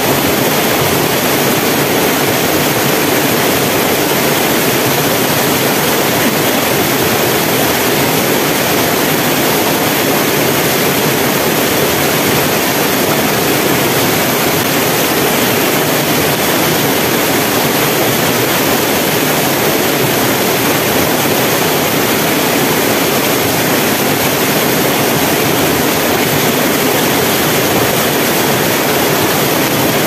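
Waterfall pouring into a rock pool: a loud, steady rush of water.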